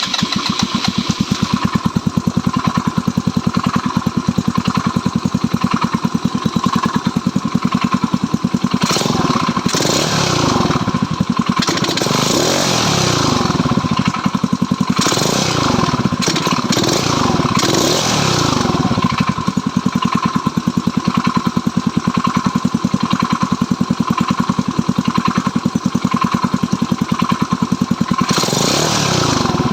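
Stels Kapitan motorcycle engine idling with a regular beat, revved up and down several times in the middle and once more near the end, as its owner listens for a knock.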